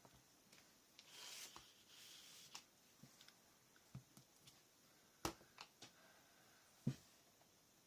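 Quiet stamping on paper: a faint rustle about a second in, a few light ticks, and two sharper taps a little after five and seven seconds in, as a rubber stamp on an acrylic block is handled and set down on the layout.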